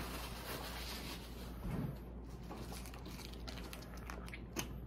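Handling noise at the table: soft rustling of paper or plastic food packaging with a few small clicks and taps, one sharper tap near the end.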